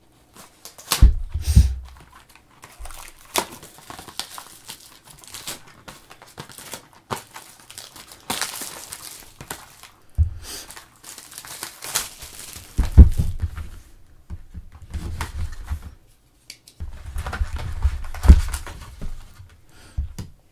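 Plastic shrink wrap being slit with a pocket knife and torn and crinkled off a cardboard trading-card box, then the box's cardboard lid being opened. Several dull knocks come through at irregular moments.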